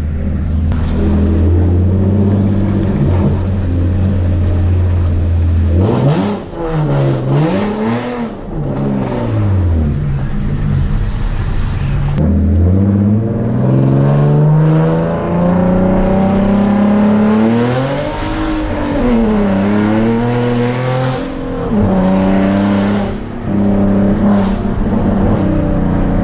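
Loud exhaust of a 2011 Nissan 370Z Nismo's 3.7-litre V6, straight-piped from the headers back with no mufflers or resonators. It drones steadily at first, then the revs swing up and down, then it climbs in pitch under acceleration, with more rises and drops in revs near the end.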